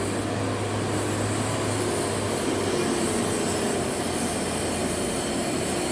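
Heavy diesel trucks' engines running, a steady rumble and road noise with a low hum that eases off about halfway through.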